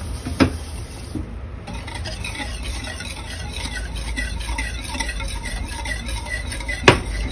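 Wire whisk beating sugar into watermelon juice in a stainless steel pot: a steady swishing with the wires clinking against the pot, and a sharp knock near the end.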